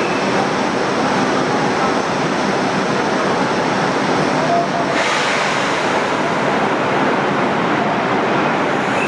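Steady noise of a 701 series electric train standing at a busy station platform, its onboard equipment running, with platform murmur mixed in. About five seconds in, a louder hiss starts and holds.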